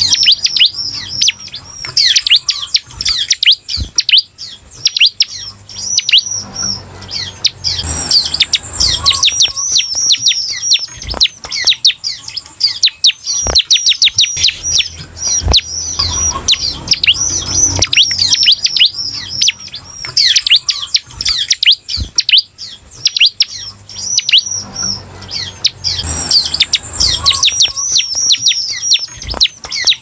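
Bar-winged prinia (ciblek) singing: fast runs of high, sharply falling notes, repeated phrase after phrase with brief pauses, in the 'semi' song style used to spur other ciblek to sing.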